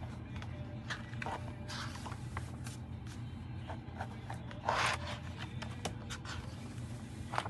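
Paper calendar pages being handled and turned by hand: light rustling and small ticks, with a louder rustle about five seconds in as a page is lifted. A steady low hum runs underneath.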